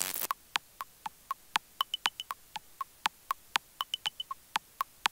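Electronic ticking beat, about four even ticks a second, with a run of four quick higher beeps every two seconds, over near silence.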